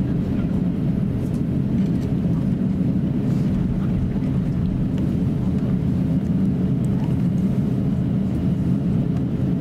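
Steady low rumble inside the cabin of an Airbus A350-900 taxiing, its Rolls-Royce Trent XWB engines running at taxi power.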